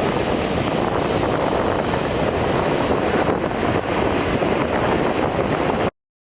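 Wind buffeting the microphone in a steady rumbling rush, with beach surf noise beneath it, cutting off abruptly to silence near the end.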